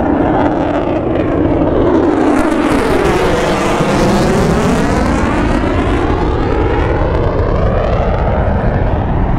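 F-35 fighter jet passing overhead: its jet engine noise grows brightest about two to six seconds in, with tones sweeping down and up as it goes over, then eases off while staying loud.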